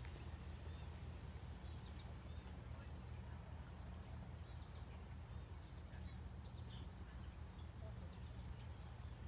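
Insects, crickets by their sound, chirping in short repeated chirps at one high pitch, over a low steady rumble.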